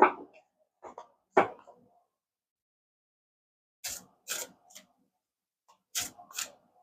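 A deck of oracle cards being shuffled by hand: short, crisp papery bursts, three together, then a pause of about two seconds, then two more clusters.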